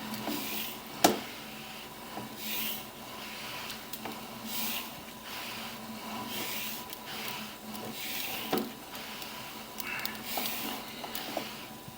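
Sewer inspection camera's push cable rubbing and scraping as it is hauled back, with two sharp clicks, one about a second in and one past eight seconds, over a steady faint electrical hum.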